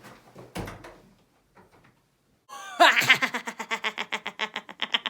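Laughter: a fast, pitched, rhythmic cackle that starts loudly about three seconds in and carries on in quick, even pulses, after a few faint soft sounds at the start.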